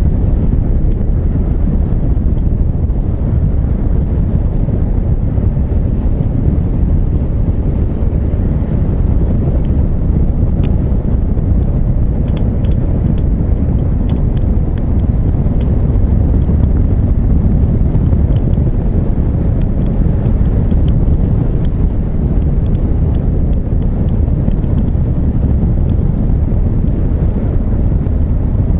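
Steady wind rush on the microphone of a moving Honda CB1300 Super Bol d'Or, with the motorcycle's inline-four engine running underneath at a steady cruise.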